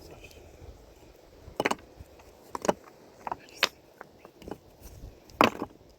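A handful of sharp, irregular knocks and clicks, about six in all, the loudest one near the end.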